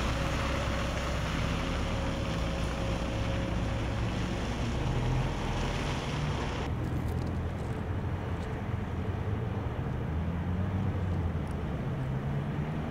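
Diesel engine of a military truck tractor running as it pulls an empty flatbed trailer away, with wind on the microphone. A steady tone sounds over it for the first few seconds, and about seven seconds in the hiss drops away abruptly, leaving the low engine sound.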